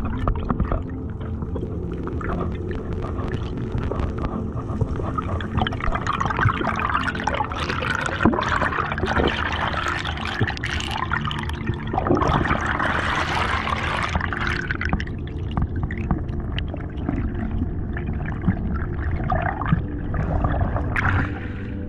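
Underwater sound on a diver's camera: a steady low rumble of the water around the housing, with a rush of air bubbles from about six to fifteen seconds in.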